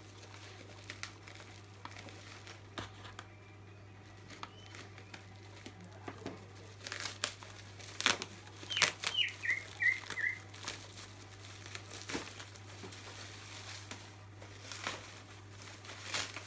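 Bubble wrap crinkling and crackling as hands tear open and unwrap a package, loudest in the middle. About nine seconds in, a short run of high, falling chirps sounds over it, with a steady low hum underneath.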